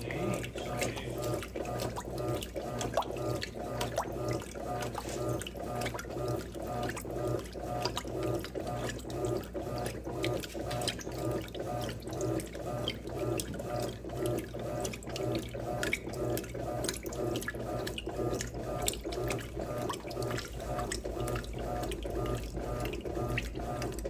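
Electrolux Turbo Economia 8.5 kg top-loading washing machine agitating its load in water: motor hum and water sloshing in an even, repeating back-and-forth rhythm, with small splashes and drips.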